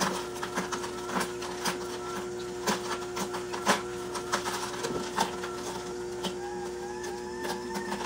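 AMZCHEF slow horizontal masticating juicer running steadily, its motor humming while the auger crushes carrots with irregular cracks and snaps. A few short squeaks come near the end.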